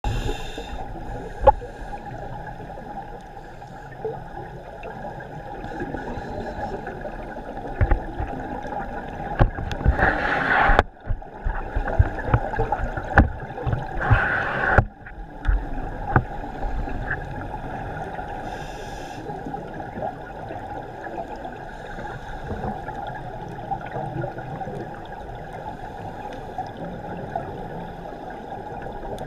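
Underwater sound through a camera housing on a scuba dive: a steady muffled water noise with two loud, roughly one-second bursts of exhaled regulator bubbles, about ten and fourteen seconds in, and scattered low knocks.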